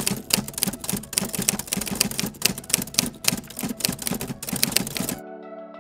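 Rapid, irregular typewriter key clacking, the sound of on-screen text being typed out; about five seconds in it stops abruptly and a soft electronic melody with bell-like tones begins.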